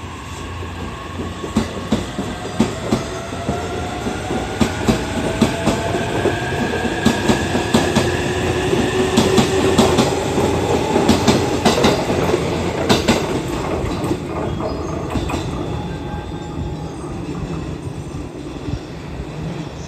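E259-series Narita Express electric train pulling away and accelerating. The traction-motor whine rises in pitch through the first half while the wheels clack over the rail joints. The sound is loudest about halfway through, then fades as the train leaves.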